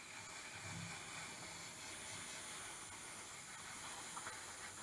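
Paint being sprayed onto plastic model parts: one steady, unbroken hiss.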